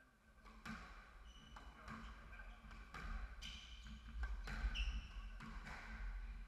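Squash rally: the ball cracks off rackets and the walls in a series of sharp impacts roughly a second apart, with short squeaks of court shoes on the wooden floor between them.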